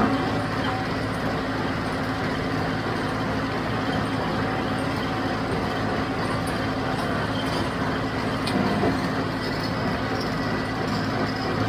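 John Deere 5055D tractor's three-cylinder diesel running steadily under load while driving a John Deere 348 small square baler as it bales hay.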